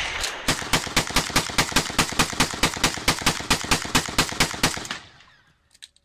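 Gunfire: a single shot, then a rapid, evenly spaced string of shots at about five a second that stops about a second before the end.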